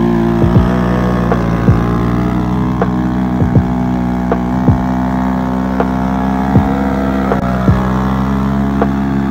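Honda Grom's small single-cylinder engine held at steady revs, its pitch barely changing, with short sharp clicks every second or so.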